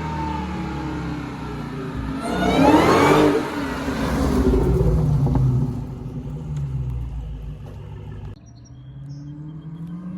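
2020 Dodge Charger Hellcat's supercharged V8 with a Legmaker carbon-fibre cold air intake accelerating hard, its pitch and supercharger whine climbing steeply about two to three seconds in, the loudest part. It then runs on lower and eases off, dropping away suddenly near the end.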